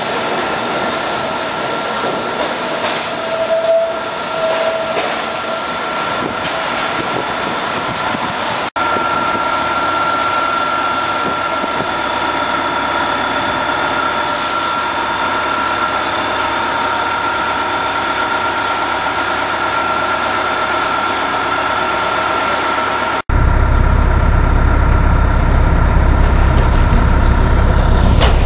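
SEPTA Media–Sharon Hill Line light-rail trolleys moving slowly past, with a steady high whine from the cars over the rumble of wheels on rail. Two short tones sound about three to four seconds in, and near the end a heavy low rumble comes in.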